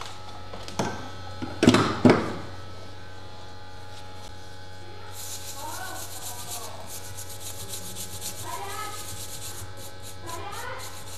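Bench work on a circuit board: a few sharp knocks in the first two seconds, then from about halfway a quick, rhythmic, high-pitched scratching, as of scraping or rubbing on the board, over a steady mains hum.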